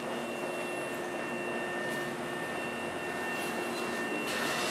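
Steady hum and high whine of a stationary electric commuter train idling at the platform, made up of several held tones over an even background noise.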